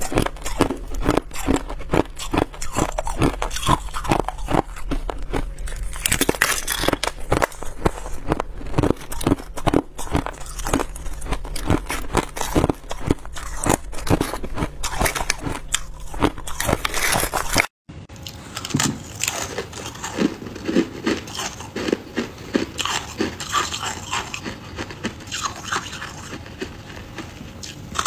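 Hard ice being bitten and chewed, dense crisp cracking crunches close to a clip-on microphone. After a brief cut about two-thirds of the way through, the crunching turns softer and duller as chunks of freezer frost are bitten.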